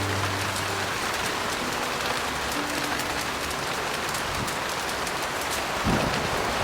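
Heavy rain falling steadily, with a few faint piano notes underneath in the first half and a single low thump about six seconds in.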